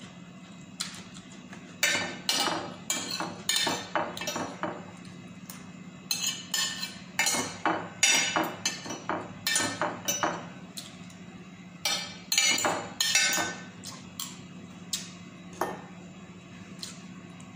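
Metal fork and spoon scraping and clinking against a ceramic plate as the last of the rice is gathered up: a run of quick clinks and scrapes, thinning out near the end. A steady low hum runs underneath.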